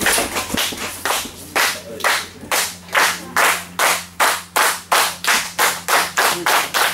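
Audience clapping together in a steady rhythm, about three claps a second, picking up slightly towards the end.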